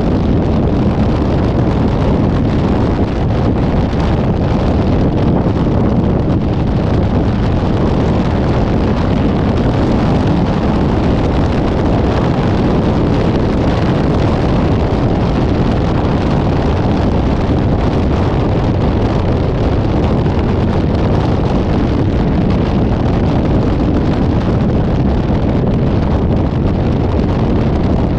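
Steady rumble of wind buffeting the microphone, mixed with road and engine noise from a moving vehicle, with no horn or sudden sound.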